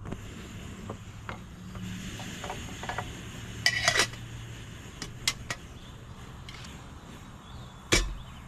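Metal camp cooking gear being handled: scattered clicks and clanks, a cluster with a short metallic ring about four seconds in, three sharp clicks about a second later, and a heavier knock near the end.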